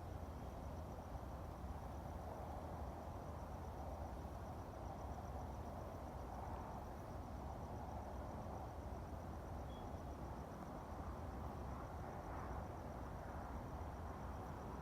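A cricket chirping in a steady, fast pulsing trill, faint, over a low, even background rumble.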